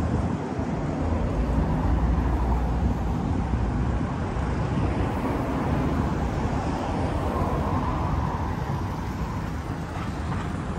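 Road traffic: cars passing on a busy road, a steady rush of engine and tyre noise.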